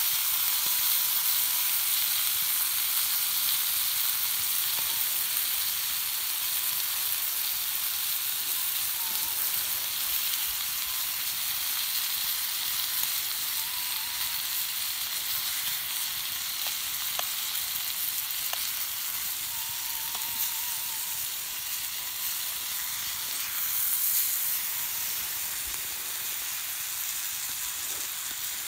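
Food sizzling steadily in a hot pan over a campfire, a continuous fizzing hiss with faint thin squeals from the cooking juices, swelling briefly about two-thirds of the way in.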